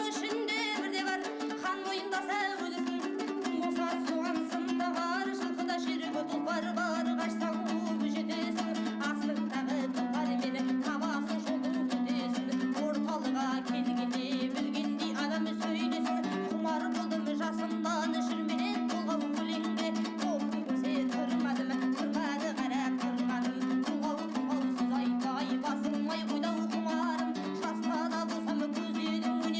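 Background music with plucked strings, like ukulele or guitar, playing a steady lilting tune.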